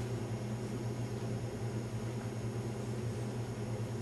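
Steady low hum under a faint even hiss: room tone, with no distinct knocks or clicks.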